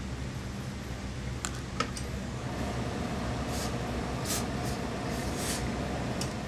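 A few light clicks, then a steam iron pressing the suit lining, giving off several short hisses of steam over a steady low hum.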